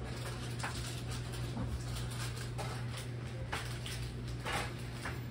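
Room tone inside a small shop: a steady low hum with scattered faint clicks and clinks.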